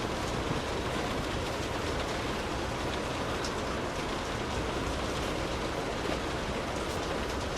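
Light rain falling on a car, heard from inside the cabin: a steady hiss with faint scattered drop ticks over a low rumble.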